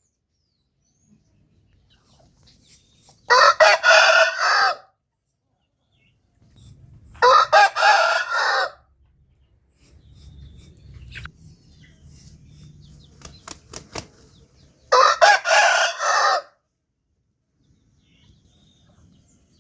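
Rooster crowing three times, each crow about a second and a half long, several seconds apart. A few faint clicks fall between the second and third crows.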